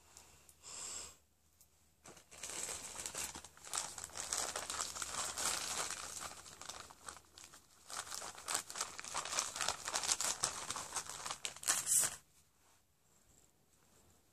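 Plastic packet crinkling and rustling as it is handled, a short rustle about a second in, then a dense run of crackles from about two seconds in that stops abruptly near the end.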